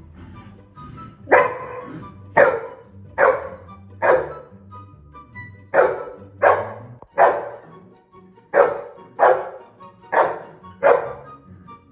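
A dog barking: eleven short, sharp barks in three quick runs of three or four, over background music.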